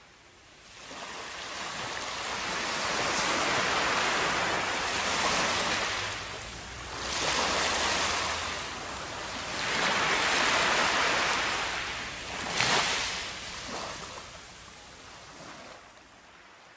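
Ocean surf: waves washing up onto a sandy shore and drawing back, the rush swelling and ebbing several times about three seconds apart before fading out near the end.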